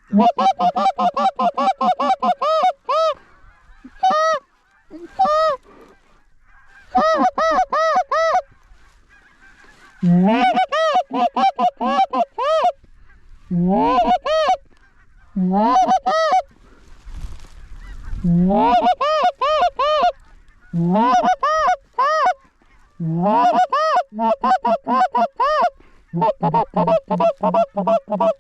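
Short-reed goose call blown hard and close in rapid runs of clucks and honks, several notes at a time with short breaks, to call Canada geese into the decoys.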